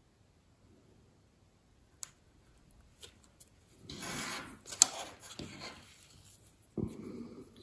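A printed paper hull strip being lifted, turned around and slid across an MDF block: a faint click about two seconds in, then a couple of seconds of paper rubbing and sliding with one sharp tick, and a dull knock near the end.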